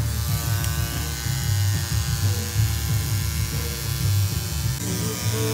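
Pen-style tattoo machine buzzing steadily as it inks a tattoo into the skin of an ankle, its tone shifting slightly about five seconds in.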